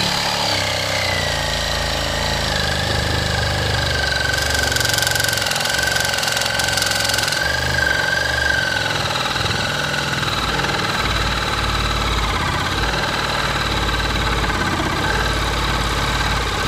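Reciprocating saw running steadily as its blade cuts along the bottom of a wooden wall frame, with a steady whine. For a few seconds near the middle a harsher rasp joins in.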